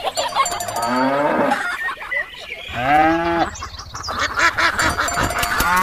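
Farmyard animal sound effects: drawn-out calls like cattle mooing and geese honking, one every couple of seconds, over a busy background of other farmyard noise.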